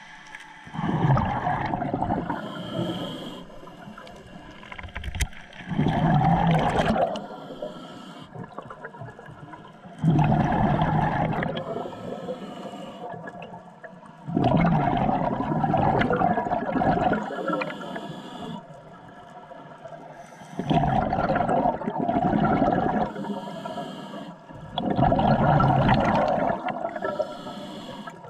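Scuba diver breathing through a regulator underwater: exhaled bubbles gurgle out in a burst about every four to five seconds, six times.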